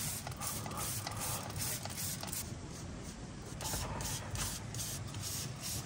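A spray gun hissing in short repeated bursts as it sprays lanolin underseal onto the underside of a Land Rover Defender.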